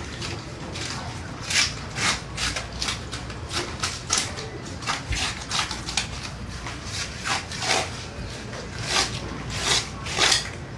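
A knife cutting through the thick scaled skin of a large arapaima, in a series of short scraping strokes that come irregularly about one or two a second.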